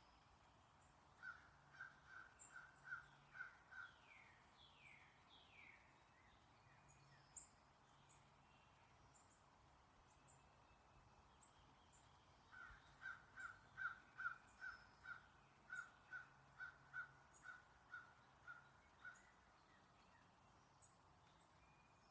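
Birds calling: one bird gives two runs of short calls repeated evenly about three times a second, a brief run near the start and a longer one in the second half, with a few quick down-slurred notes and faint high chirps from other birds between them.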